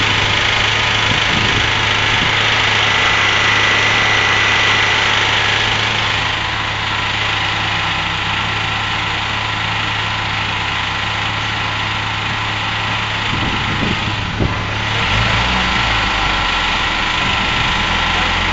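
Peugeot 205 Mi16's 16-valve four-cylinder engine idling steadily on a rolling road. About fourteen seconds in there are a couple of brief knocks, and then the low note changes.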